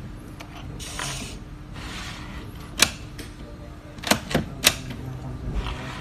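Sharp mechanical clicks from a fingerprint smart door lock on a display stand as it is handled: one click about three seconds in, then three quick clicks a second later, with some brushing and scraping before them.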